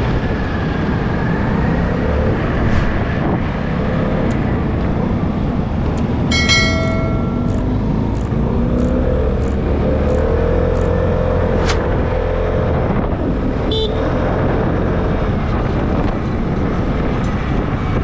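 Vespa S125 scooter's single-cylinder four-stroke engine running steadily on the move, with road and wind noise on the action-camera microphone. A vehicle horn toots once for about a second, around six seconds in.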